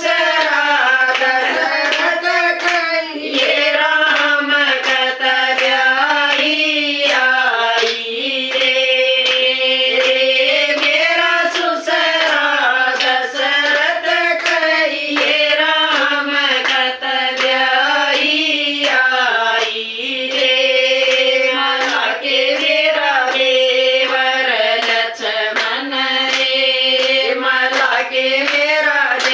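A group of women singing a Hindu devotional bhajan in unison and keeping time with steady, rhythmic hand claps.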